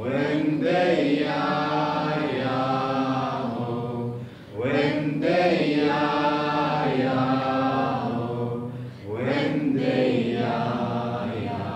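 Voices chanting a mantra in three long held phrases, each opening with a swell in pitch, over a steady low monochord drone.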